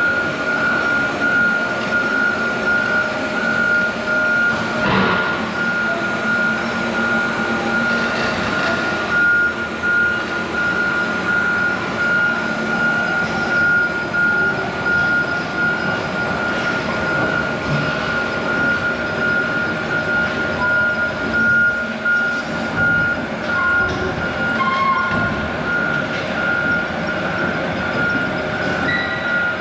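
Heavy equipment running, with a steady electronic warning beeper sounding at one pitch throughout, typical of an excavator's travel alarm.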